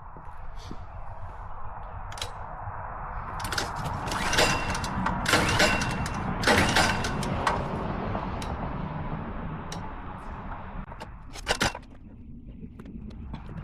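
Scattered sharp clicks and knocks over a steady hiss, bunched from about four to seven seconds in, with a quick double knock near the end. No engine is running.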